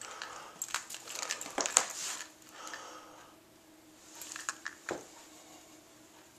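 Rustling and crinkling with light clicks and taps as a toy on a string is dangled and batted by a cat over a hardwood floor, busiest in the first two seconds, with a soft thump about five seconds in.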